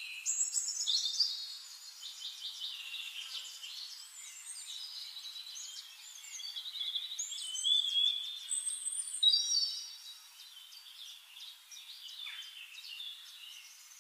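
Several birds chirping and singing together, a run of short whistled calls and trills.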